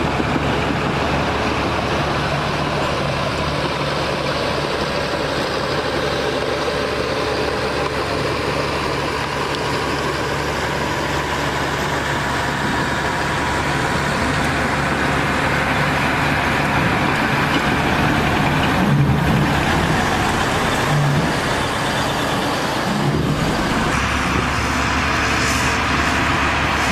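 Diesel engine of heavy earthmoving machinery running steadily under work.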